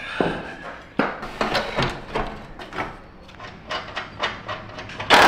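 Irregular clanks, knocks and clicks of hand tools and metal parts as an ABS brake module is fitted in place. A louder steady noise starts at the very end.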